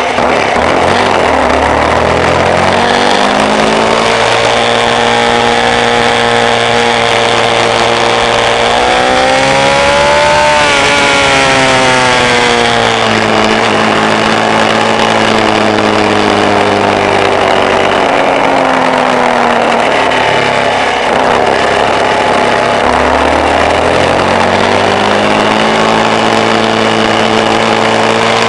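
Off-road vehicle engine running under way, its pitch holding at steady speeds and changing in steps, rising to a peak about ten seconds in and falling away, then climbing again near the end.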